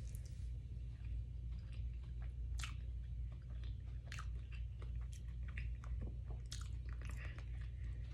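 A person chewing and biting food close to the microphone, with irregular wet mouth clicks and smacks, over a steady low hum.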